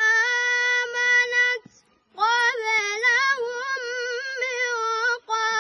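A young boy chanting the Quran in a high, melodic tajweed recitation. A long held note breaks off about a second and a half in; after a short breath he goes on in a wavering, ornamented phrase.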